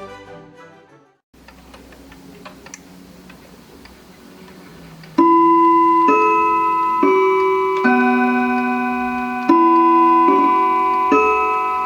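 Background music fades out, then a Franz Hermle three-train clock movement ticks softly. About five seconds in, its chime starts playing a melody, one loud ringing note roughly every second, each note ringing on under the next.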